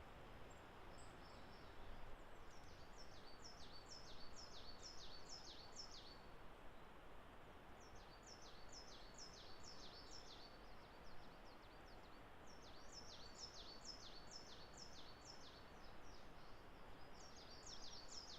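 A songbird singing phrases of one high, falling note repeated quickly, about ten notes to a phrase. There are four phrases with short pauses between them, over a faint steady hiss of forest ambience.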